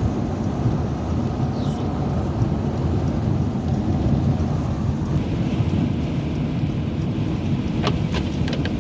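Steady road noise inside a Sprinter cargo van's cabin while driving: a low rumble with tyre hiss, which grows brighter about five seconds in. A few light clicks come near the end.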